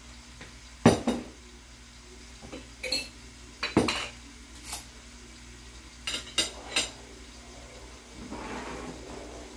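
Glass jars and a bottle knocked down onto a countertop and a small spoon clinking against a ceramic plate: a series of sharp, separate knocks and clinks, with a short soft hiss near the end.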